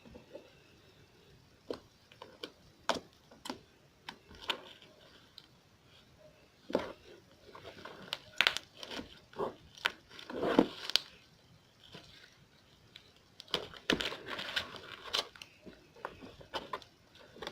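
Slime being squished and stretched by hand: irregular sticky clicks, pops and crackles, busiest around the middle and again a little before the end.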